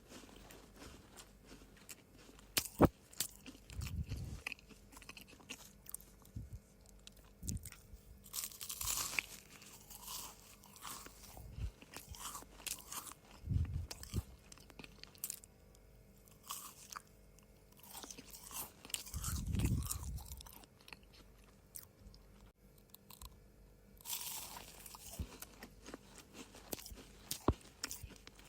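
Close-up eating of dry cookies: irregular crisp crunches and chewing, with several heavier low chewing swells in between.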